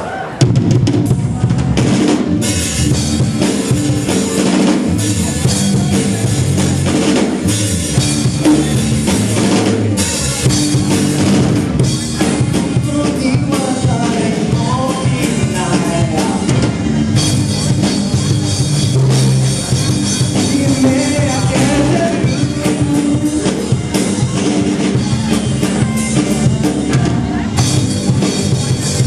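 Live rock band starting a song, led by a loud drum kit with kick and snare hits under distorted electric guitars, heard through the hall's PA.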